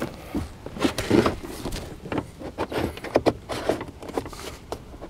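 Plastic trim tool prying at the bottom edge of a Jeep Grand Cherokee's door trim panel: irregular knocks, clicks and creaks from the panel and its tight plastic retaining clips as it is worked loose.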